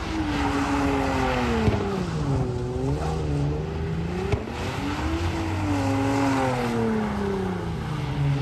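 Car engine revved hard over and over, its pitch climbing and sagging several times over a steady rushing noise.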